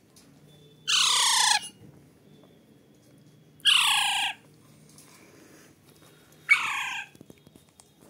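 Alexandrine parakeet chick giving three loud, harsh calls a few seconds apart, each sliding down in pitch, with its beak wide open.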